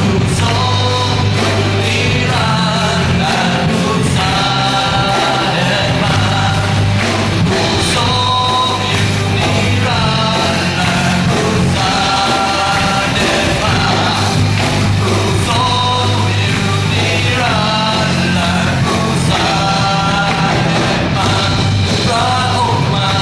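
Live rock-style worship band playing: electric guitars, bass and a drum kit, with a voice singing the melody.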